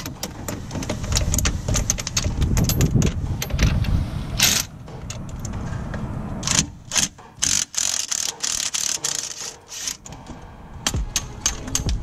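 Cordless impact wrench hammering loose the strut-to-knuckle bolts of a front suspension strut, in several bursts with short pauses.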